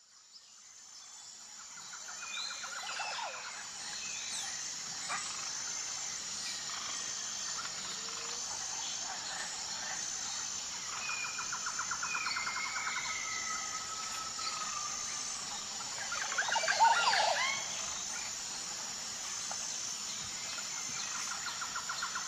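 Parrots calling: several rapid trills and whistled calls that glide downward, with a loud burst of calls about three quarters of the way through. A steady, evenly pulsing high-pitched buzz runs underneath.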